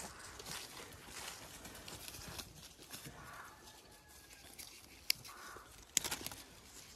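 Faint rustling of footsteps through grass and fallen leaves under apple trees, then a sharp snap about five seconds in as an apple is pulled off its branch, followed about a second later by a short cluster of crisp clicks.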